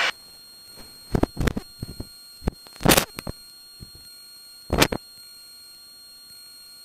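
Cockpit intercom audio from a Cessna 182 with nobody talking: a faint steady electronic whine and hiss. Four or five short bursts of noise break it during the first five seconds.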